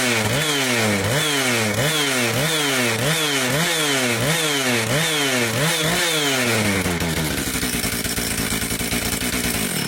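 Johnson Red CS 2255 55cc two-stroke chainsaw engine running on two-stroke mix dosed with nitromethane, revved up and down about twice a second, then settling into steady running about seven seconds in.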